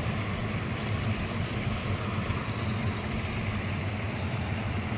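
Steady rush of water pouring through a spillway that is running high after rain, a constant low rumble with a hiss above it.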